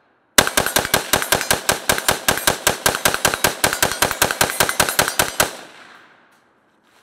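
Galil ACE 5.56 semi-automatic rifle fired in a fast magazine dump. About thirty shots come at roughly six a second for about five seconds, and the echo fades after the last shot.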